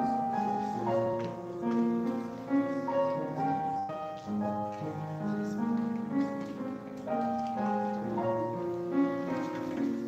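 Solo piano playing a gentle piece of held chords and a melody line.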